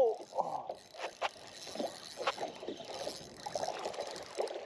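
Small waves slapping and lapping against the hull of a small skiff, with a few sharp knocks.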